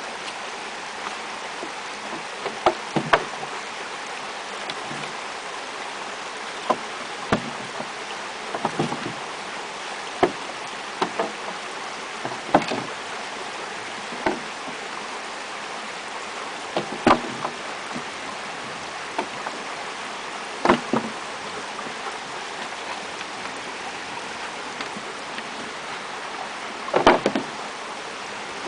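A wooden stick knocking against the posts and planks of a wooden footbridge as a dog tugs and shifts it, in irregular sharp knocks every second or two with a louder cluster near the end, over a steady rushing hiss.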